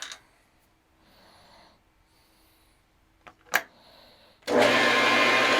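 A few soft rustles and sharp clicks, then about four and a half seconds in a metal lathe starts up and runs with a loud, steady whir.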